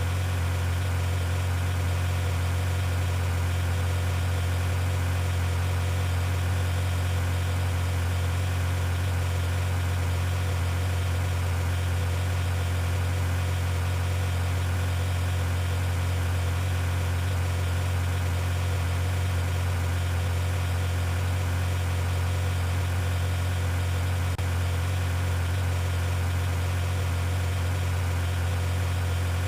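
Steady, unvarying low hum of an idling engine.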